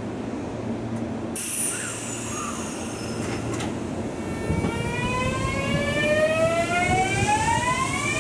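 Electric train running with its motors and inverter whining, a set of tones that start about four seconds in and climb steadily in pitch as it gathers speed, over a steady low rumble. A high, thin squeal falls in pitch about a second and a half in.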